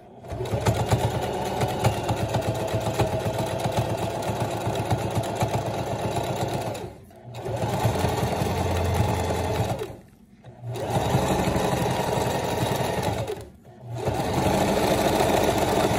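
Domestic sewing machine running, stitching black binding trim onto stretch fabric in four runs with three short pauses.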